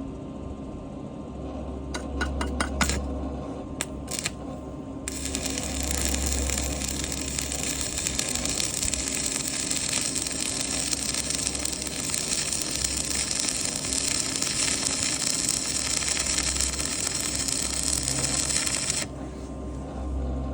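Electric welding arc powered from a Tesla's V2L outlet: a few short crackles as the arc is struck, about two and four seconds in, then a steady crackling sizzle for about fourteen seconds that cuts off suddenly near the end. A low hum runs underneath.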